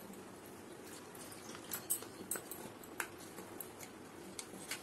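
Faint kitchen handling sounds: a few light clicks and taps from spoon and spice container over a steel mixing bowl, over low steady background noise.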